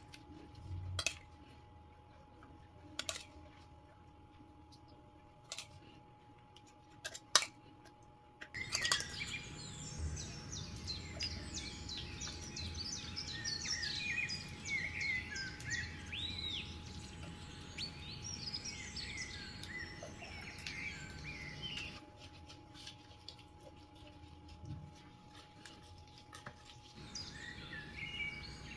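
Birds chirping and singing busily, starting suddenly about a third of the way in and dropping back near the end. Before that there are only a few sharp clicks and taps, likely a gloved hand working marinade into a whole fish on a metal tray, over a faint steady hum.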